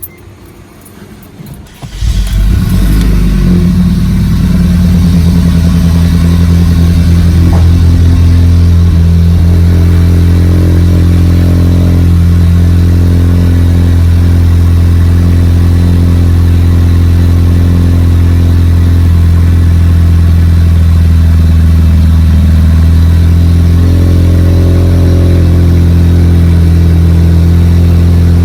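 Asüna Sunfire's engine cold-starting about two seconds in, then running at a steady idle with the muffler removed, loud and open-sounding through the bare exhaust pipe.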